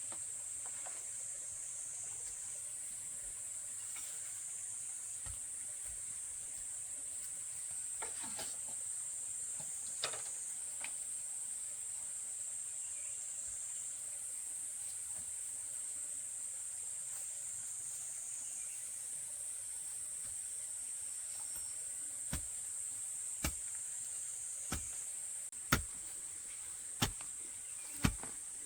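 Steady high-pitched insect chorus, cicadas or crickets, in forest. Near the end, a run of sharp knocks comes about once a second, getting louder.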